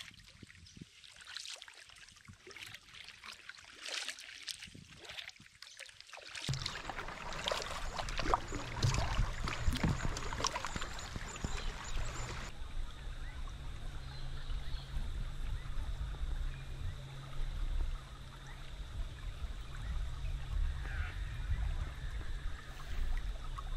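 Water dripping and trickling off a double-bladed paddle and lapping at the hull of an Old Town Next solo canoe as it is paddled along. From about six seconds in, a steady low rumble runs under the water sounds.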